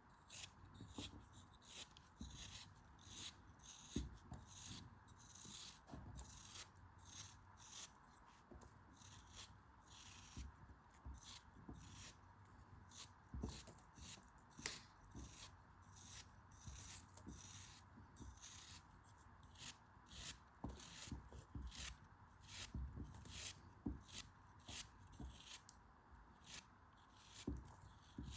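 Close-up ASMR handling sounds: a run of short, crisp crunches and cuts, about one or two a second, over a faint steady hiss.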